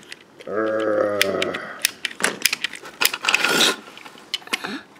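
Plastic parts of a Rescue Bots fire-truck toy clicking and clattering as it is handled and its claw worked. A person's voice holds a low steady note for about a second about half a second in, and a short hiss comes a little after three seconds.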